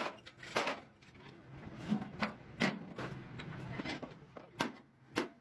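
A string of short, separate knocks and clicks at irregular intervals, about eight or nine of them, as of hard objects being handled and set down.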